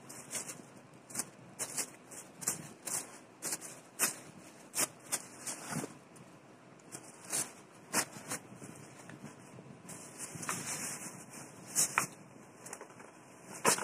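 Shoe tissue paper crinkling and rustling in irregular crackles as it is handled and stuffed into a suede boot.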